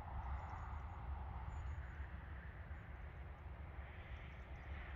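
Airbus A330neo's Rolls-Royce Trent 7000 turbofans at taxi power as the airliner rolls along the runway: a steady jet hiss over a deep low rumble, the hiss growing brighter near the end.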